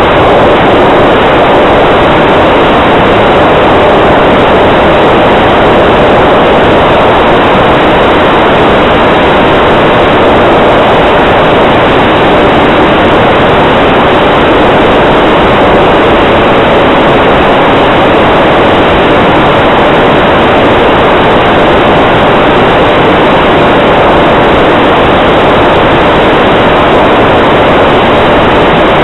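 E-flite P-47D Thunderbolt RC model in flight, heard from its onboard camera: its electric motor and propeller run steadily under heavy wind noise on the microphone. The sound is a loud, even noise with a faint steady whine under it.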